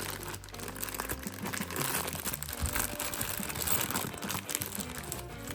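Packaging crinkling and rustling as it is handled, a steady run of small crackles.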